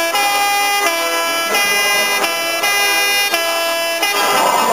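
Truck's musical air horn playing a tune, a run of about seven held notes that step from pitch to pitch every half second or so, over the steady noise of the engine and the crowd.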